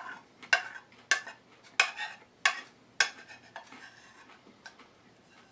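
Metal spoon clinking and scraping against a bowl while scooping up the last of a salad: about five sharp clinks in the first three seconds, then fainter scraping.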